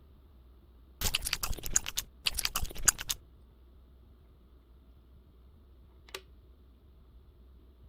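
Two bursts of rapid crackling clicks from small objects being handled up close, each lasting about a second, then a single short click about six seconds in.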